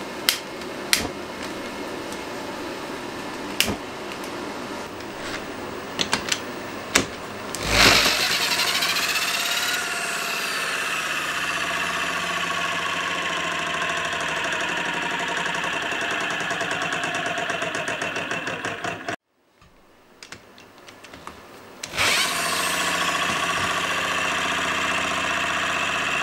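Rhombic-drive Stirling engine: a steady burner hiss with several sharp igniter clicks, then about 8 s in the engine starts up and settles into steady running with a whine from its gears. It runs rough, still needing serious balancing. The sound drops out briefly about two-thirds of the way through, and the engine is heard starting up and running again.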